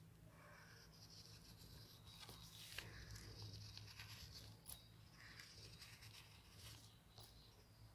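Faint scratching of a ballpoint pen tracing over a paper embroidery pattern laid on carbon paper and fabric, with a steady low hum underneath.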